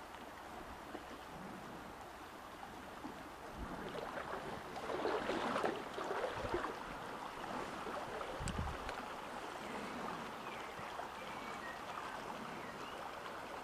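Small stream running over shallows: a steady rush of water that swells louder for a couple of seconds about five seconds in, with a few short low knocks.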